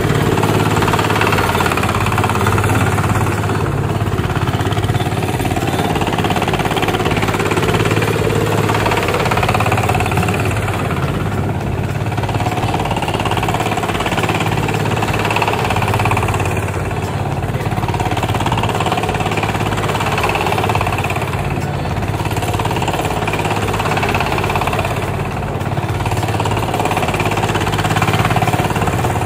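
Single-cylinder Chinese diesel engine of a homemade boat tractor running steadily under load with a rapid, knocking chug as the tractor ploughs through deep paddy-field mud.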